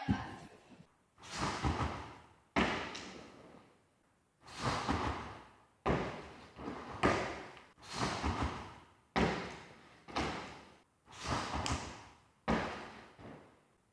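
Repeated thuds of gymnastics landings or bounces on gym apparatus: about ten impacts, roughly one every second or so, each ringing on in a large hall.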